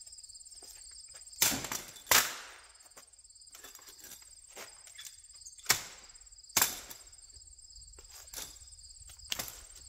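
Aluminium folding webbed lawn chair being unfolded and set down: about five sharp clanks and knocks of its metal frame. A steady high chirring of insects runs behind.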